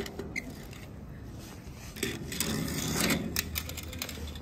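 Toy cars being handled: scattered light clicks and rattles, with a louder rush of noise about two seconds in that lasts a second or so.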